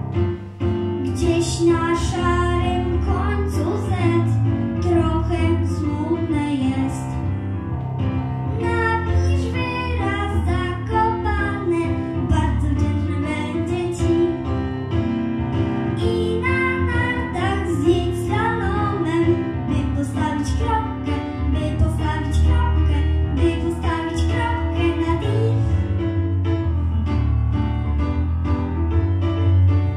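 A young girl singing a song in Polish into a microphone over instrumental accompaniment with a steady bass line.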